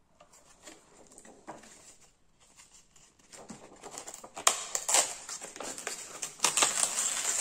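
Thin plastic film rustling and crackling as hands work it at the tip of a freshly vacuum-bagged foam glider wing. It is faint at first and turns into loud, irregular crinkling with sharp crackles from about halfway.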